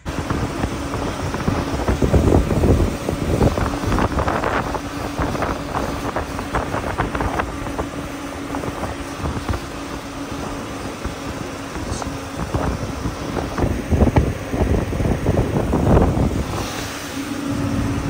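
Vehicle engine running steadily with a constant hum, under heavy wind buffeting on the microphone.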